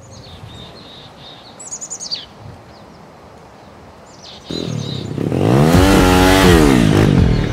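Birds chirping faintly over quiet evening air. Then, about four and a half seconds in, a 49cc moped engine starts running loud and is revved up and back down once.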